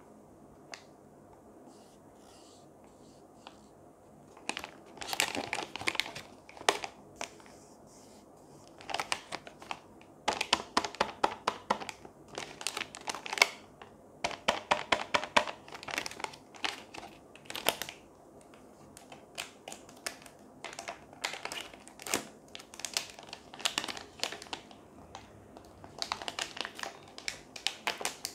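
Plastic packaging crinkling and crackling as hands handle and work open a white plastic mailer pouch and a clear plastic sleeve. The sound comes in irregular bursts of crackles, starting about four seconds in.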